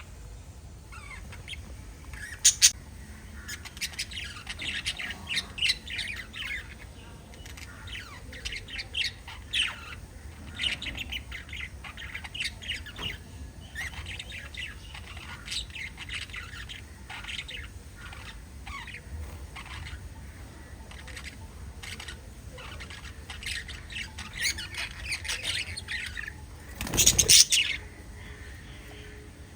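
Several small pet parrots chirping and squawking in quick, overlapping bursts. Near the end there is a brief loud burst, the loudest moment.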